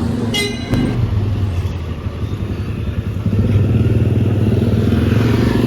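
Motor vehicle engine running close by: a loud, steady low drone that gets somewhat louder about three seconds in, with a brief high-pitched tone near the start.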